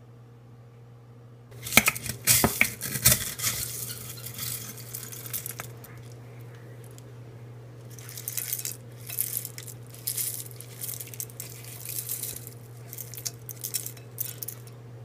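Dry granola scooped from a large glass jar and poured into a ceramic bowl, rattling and rustling in repeated scoops. A few sharp clinks of glass and dishes come about two seconds in, and a steady low hum runs underneath.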